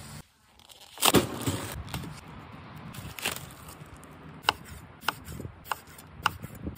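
Chef's knife slicing raw steak thin on a wooden end-grain cutting board, the blade knocking the board about every half second. A louder burst of handling noise comes about a second in.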